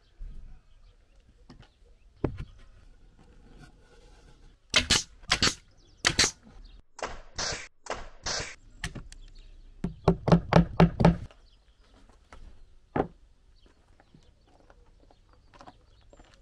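Pneumatic nail gun firing nails into OSB drawer panels: sharp single shots spaced a second or so apart, then a quick run of about seven shots around ten seconds in.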